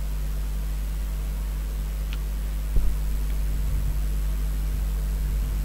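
Steady low hum and hiss of background noise, with one dull thump a little under three seconds in.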